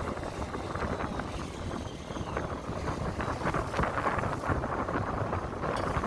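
Wind buffeting the microphone over waves splashing and sloshing against the hull of a small fishing boat in a rough sea, a steady rushing noise with a low rumble beneath.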